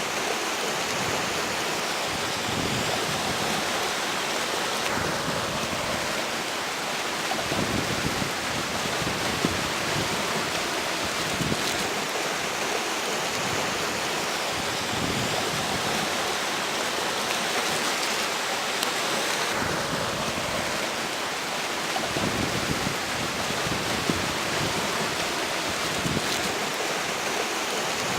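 Steady rush of a flowing river, with strong wind gusting over it; the low rumble swells and drops as the gusts come and go.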